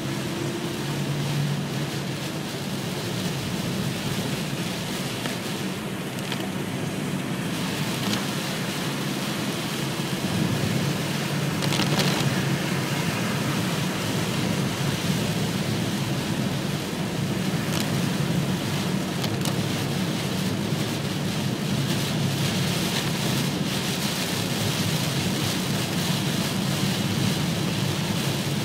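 Heavy rain falling on a car's roof and windscreen, heard from inside the moving car, with a steady noise of tyres on the wet road and a low engine hum underneath.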